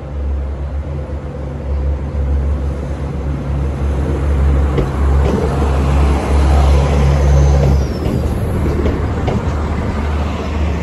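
Northern Ireland Railways Class 3000 diesel multiple unit pulling into the platform close by. Its underfloor diesel engine drones steadily and low, with wheel and rail noise building in the middle. The drone drops away suddenly about eight seconds in, leaving rolling noise and a few light clicks.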